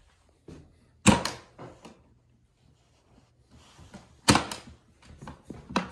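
Metal latches on a Singer Featherweight 221's carrying case being snapped open: two sharp clicks about three seconds apart, then several lighter clicks and knocks as the case is handled.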